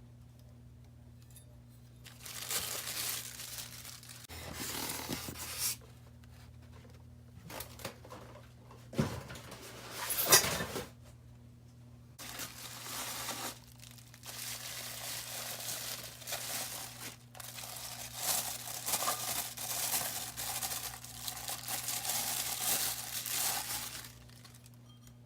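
Packaging being torn and crinkled in repeated rustling bursts, with one sharp, louder knock about midway.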